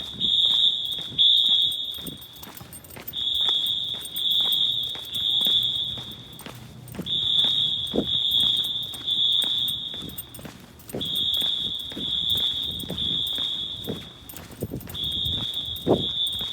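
Wheelock AS horn strobes on a synchronized Notifier fire alarm system sounding the temporal-three evacuation pattern: three loud, high beeps, a pause, repeating about every four seconds. The sound echoes through a parking garage.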